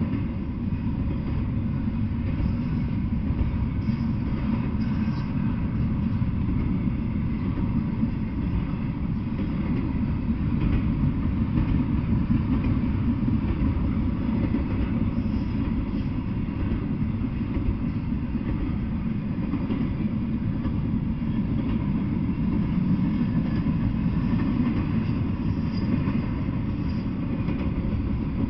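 Double-stack intermodal container train rolling past at a steady speed: a continuous low rumble of steel wheels on the rails, with a few faint high squeaks.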